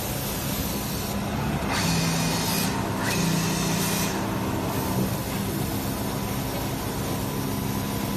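Automatic cutting machine running steadily with a low hum, with two spells of hissing about two and three seconds in.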